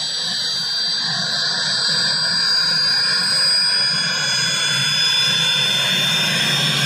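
Army helicopter flying overhead: a steady high-pitched turbine whine over the noise of the rotor, its pitch drifting slowly.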